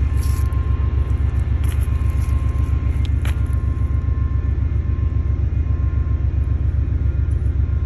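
Diesel locomotive of a stopped train idling: a steady low rumble with a fast, even throb and a faint steady high tone above it.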